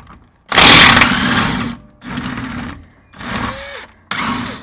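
Cordless impact wrench hammering in four trigger bursts, the first lasting about a second and the next three shorter, as it works on the lower mounting bolt of a rear strut.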